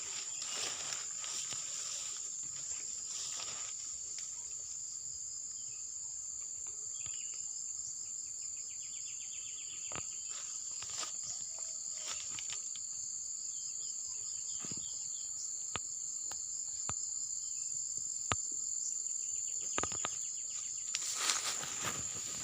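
A steady high-pitched insect chorus, with scattered light clicks and rustles throughout.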